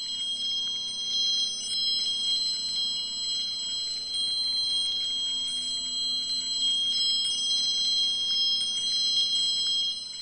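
Intro sound effect: many high chime tones held throughout, with light tinkling among them, over a low steady hum.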